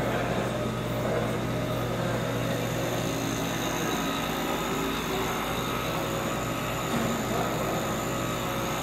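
CTI-Cryogenics 8200 helium compressor running with a steady mechanical hum that holds one low pitch.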